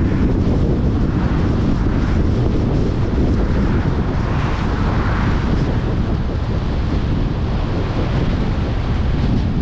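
Wind buffeting the microphone of a camera mounted outside a moving car, over steady tyre and road noise. It swells briefly about halfway through as an oncoming van passes.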